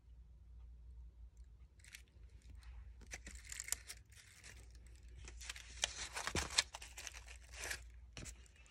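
Paper flower petals rustling and crinkling as hands press the glued centre down and handle the flower, with a few small clicks; the rustling starts about two seconds in.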